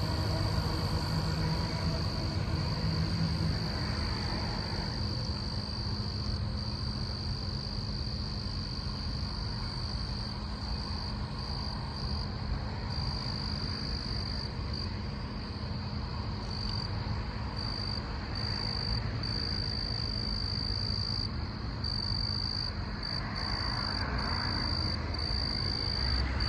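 Night chorus of frogs and insects, with a high trill that keeps pulsing on and off. Under it is a low rumble from a departing freight train of tank cars, strongest in the first few seconds.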